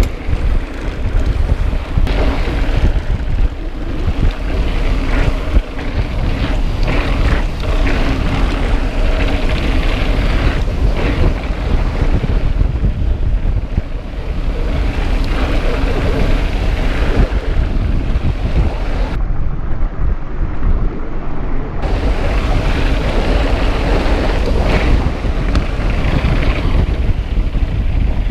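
Wind buffeting the microphone of a mountain biker's action camera during a fast descent on bare sandstone, with the rushing rumble of the tyres rolling over the rock.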